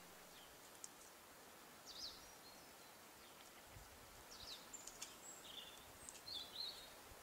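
Faint chirps of small birds: a few short, high calls scattered through, the busiest cluster about two-thirds of the way in, against near silence.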